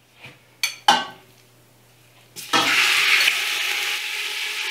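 Two short knocks, then about two and a half seconds in raw chicken pieces hit hot olive oil in a stainless steel stockpot and start sizzling loudly. The sizzle then keeps on steadily as the chicken fries.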